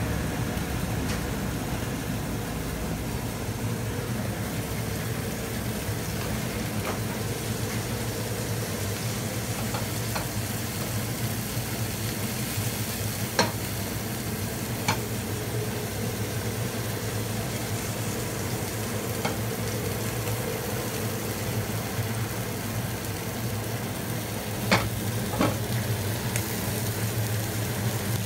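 Capelin frying in oil in a nonstick pan over a gas flame at medium-low heat: a steady gentle sizzle over a low hum. A few sharp clicks stand out, two about halfway through and two a few seconds before the end.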